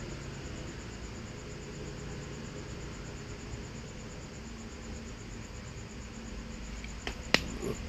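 Two or three sharp clicks about seven seconds in, the middle one loud, from pliers worked on a wire at a TV power supply board, over a steady low background hum.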